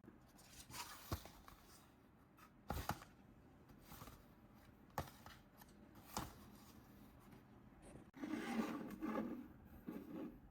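Toy packaging being handled and opened by hand: scattered sharp taps and clicks, then a longer stretch of rustling near the end.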